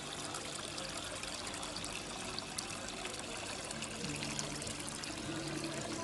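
Water pouring and trickling steadily over a small cement tabletop waterfall fountain. Soft background music with held low notes comes in about two-thirds of the way through.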